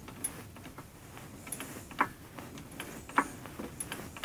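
Hand-pumped hydraulic shop press being worked, pressing the shaft out through a flathead water pump's pulley: a series of irregular sharp clicks and knocks from the handle and ram, the strongest about two seconds in, just after three, and at the end.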